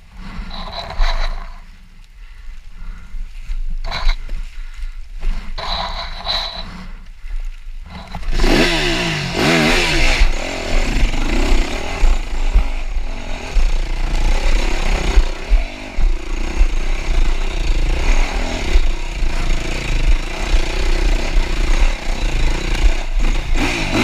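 Yamaha YZ250F dirt bike's single-cylinder four-stroke engine, quieter with scattered knocks at first, then revved up sharply about eight seconds in and kept running hard under throttle.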